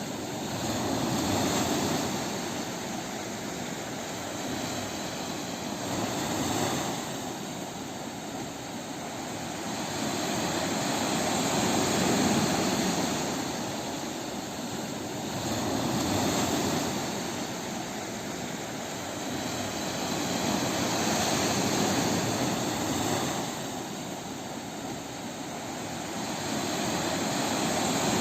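Ocean waves breaking on a beach: a steady wash of surf that swells and fades in slow surges about every five seconds.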